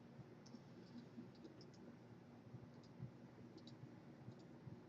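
Faint, irregular clicking of a computer mouse and keyboard, a few small clicks every second.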